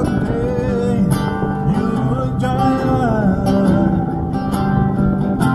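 Live song: a man's amplified singing voice over strummed acoustic guitar, both played through small acoustic amplifiers.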